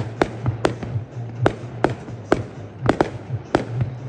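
Fireworks display: a rapid, irregular string of sharp bangs from bursting shells, about three a second, with music playing underneath.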